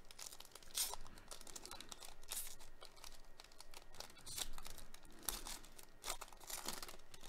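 Foil wrapper of a Panini Prizm baseball card pack crinkling in irregular crackles as it is torn open and handled by gloved hands.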